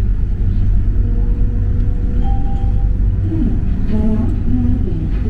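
Mitsubishi Crystal Mover rubber-tyred automated light-rail car running, heard from inside the car: a steady low rumble with a steady hum above it. A few faint wavering tones come through about three to four seconds in.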